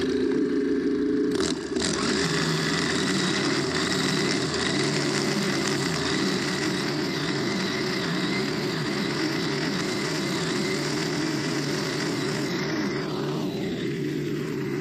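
Stihl FS90R string trimmer's four-stroke 4-MIX engine running at full throttle while its nylon line cuts tall dry grass, steady apart from a brief dip about a second and a half in.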